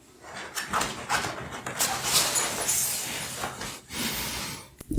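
Rustling and handling noise, with many small scrapes and knocks, as the user's guide is drawn out of a zippered carrying bag.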